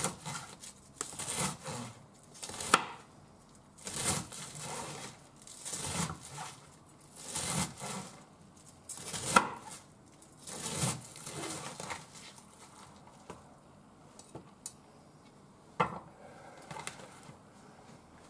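Kitchen knife slicing through a head of napa cabbage on a wooden cutting board, with a crisp crunching cut about every second and a half. After about eleven seconds the cutting stops, leaving quieter handling sounds and one sharp knock.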